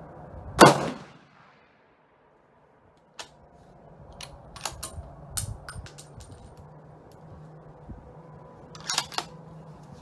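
A single bolt-action rifle shot about half a second in, loud and followed by a short ringing tail. Then metallic clicks and clinks as the bolt is worked and the spent case comes out, and another cluster of clicks near the end as the bolt is closed.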